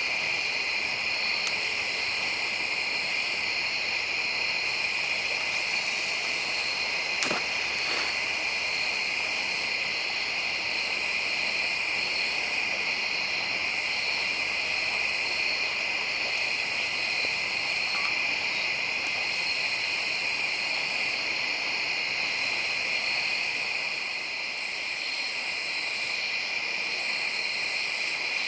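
Dusk chorus of insects: a steady high trill, and above it a shriller call that comes in bouts of about two seconds, roughly every three seconds. Two faint clicks sound about seven seconds in.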